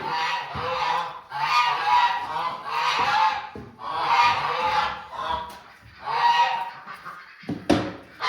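Geese honking over and over, about seven loud calls roughly a second apart, with a sharp knock near the end.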